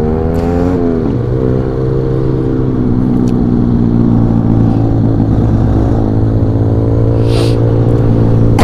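Motorcycle engine at road speed, heard from the rider's seat. The revs climb, then drop about a second in, and the engine runs steadily after that. A brief rush of noise comes near the end.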